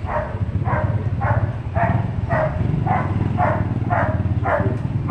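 A dog barking over and over at an even pace, about two barks a second, over the low steady running of a motorcycle engine.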